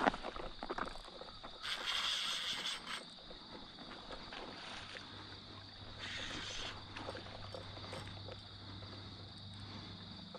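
Faint water sounds around a kayak on calm water: soft lapping and small splashes, with two short hissing splashes about two seconds in and again past six seconds, over a steady faint high-pitched tone.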